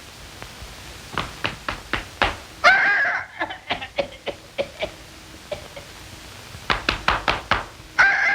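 A run of sharp knocks, like rapping on a hard shell, cut off by a short pitched toot. More knocks follow, then a longer toot starts near the end.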